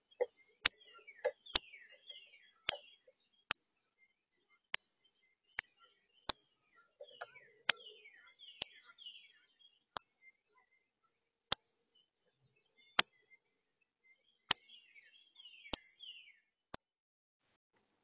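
Northern cardinal giving loud, sharp chip calls, about fifteen of them roughly a second apart, stopping near the end. Fainter falling chirps from other birds sound between them.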